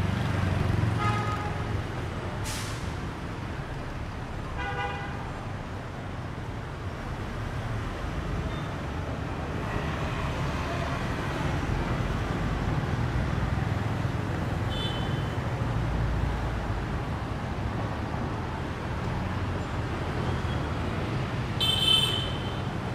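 City street traffic: motor scooters and cars passing with a steady engine rumble, and a few short horn beeps, the loudest near the end.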